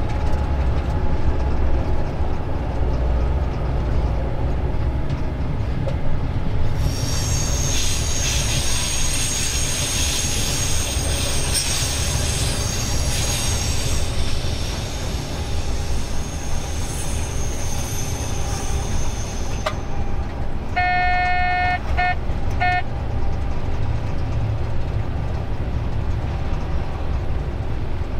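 Vossloh G 1206 diesel locomotive heard from inside its cab: a steady low engine drone with rail running noise. From about a quarter to halfway through, a high wheel squeal rises over it, and around two-thirds through a short pitched tone sounds in three brief pulses.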